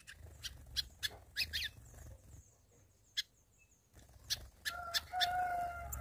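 Caged songbirds chirping in short, sharp calls among a few light clicks. About five seconds in comes a long held call that falls away at its tail, like a rooster crowing.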